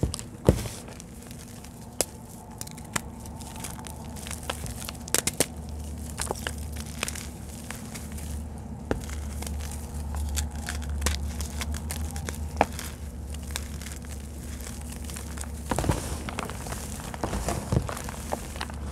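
Gloved hands crushing and crumbling dry red clay dirt in a plastic tub: a steady gritty crunching with many sharp cracks as lumps break, and dirt showering back onto the pile. A steady low hum runs underneath.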